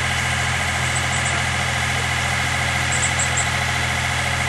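Bucket truck's engine running at a steady idle, a constant low drone with no change in speed.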